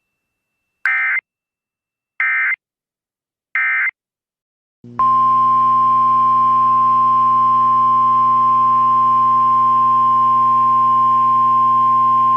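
Emergency Alert System signalling: three short digital data bursts about a second and a half apart, the SAME end-of-message code. About five seconds in they are followed by the steady 1050 Hz NOAA Weather Radio warning alarm tone over a low hum.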